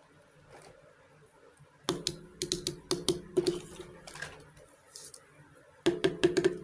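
Small miniature toy kitchenware pieces clicking and clattering against each other as they are handled. A run of quick sharp clicks starts about two seconds in and lasts about two seconds, and a second short run comes near the end.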